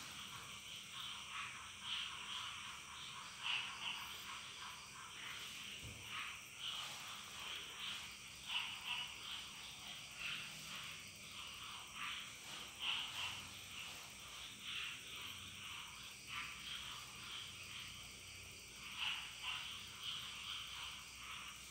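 Faint chorus of frogs calling, short calls repeating irregularly.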